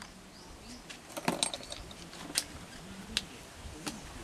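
Scattered light clicks and taps of small medicine bottles, vials and their packaging being handled, a few with a faint glassy ring.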